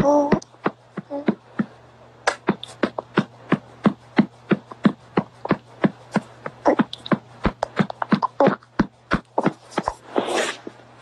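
A hand patting a baby's back in a steady rhythm, about three pats a second, burping him after a feed. A short voice sound at the start and a brief breathy rush near the end.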